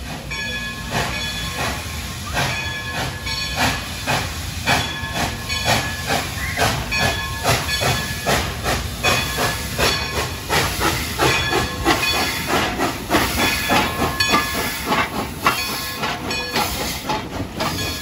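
Steam locomotive 192 (ex-White Pass and Yukon) pulling out, exhaust chuffing with hissing steam, the chuffs coming faster as it gathers speed.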